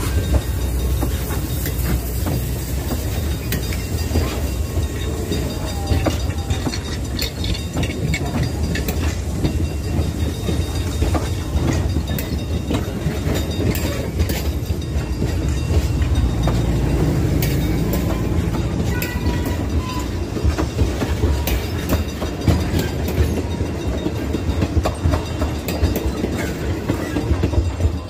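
Passenger train cars rolling past close by: a steady rumble with steel wheels clacking over rail joints and the grade crossing.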